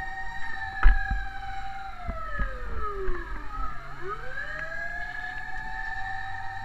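Fire truck sirens wailing: two tones held high, gliding down together about two to four seconds in, then rising and holding again, over a low rumble. A sharp knock sounds about a second in.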